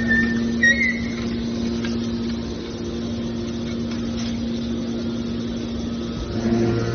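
Scrap metal baler's hydraulic power unit running with a steady electric hum, with a couple of short high metallic squeaks in the first second. The low part of the hum grows stronger near the end.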